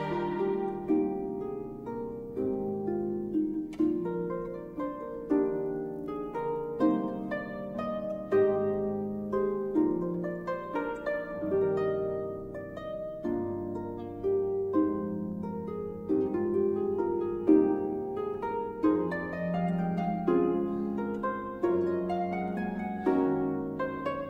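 Concert pedal harp playing a flowing solo passage of plucked notes and arpeggiated chords, each note ringing and fading as the next is struck.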